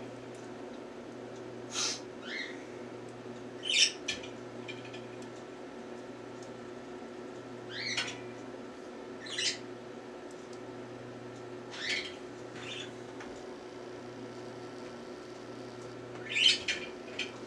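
Northern cardinals giving short, sharp chip calls, about a dozen scattered a few seconds apart, over a steady low hum.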